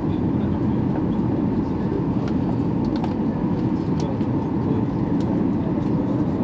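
Steady cabin noise of a jet airliner on its landing approach: the engines and rushing airflow heard from inside the cabin, an even low hum with a few faint clicks.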